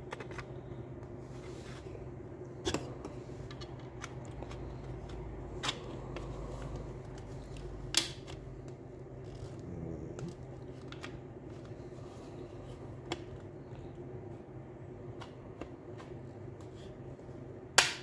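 Scattered sharp clicks and taps of a 3D-printed plastic bracket being handled and pressed onto the notches of a refrigerator door shelf, the loudest click near the end. A steady low hum runs underneath.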